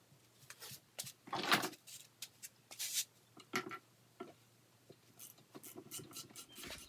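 Scattered knocks, clunks and a couple of short scrapes as a Sea-Doo engine is worked loose and pulled out of its hull.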